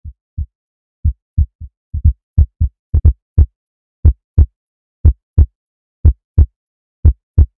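Heartbeat-style sound effect: pairs of deep thumps, one pair about every second. They start faint and uneven and become steady and loud after about two seconds.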